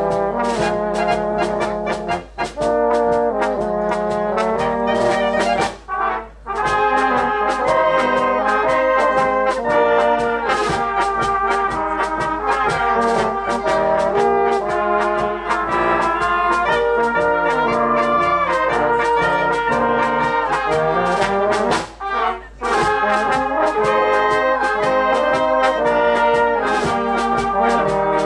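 Brass band music, with trumpets and trombones playing a melody. It breaks off briefly about six seconds in and again about twenty-two seconds in.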